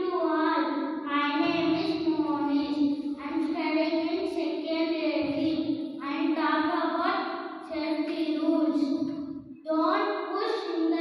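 A young boy singing into a handheld microphone without accompaniment, in long held phrases with a short break about nine and a half seconds in.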